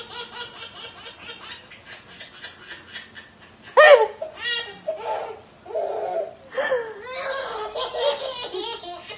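Baby laughing in quick, repeated belly-laugh bursts, with a sudden loud vocal outburst about four seconds in, followed by more laughing.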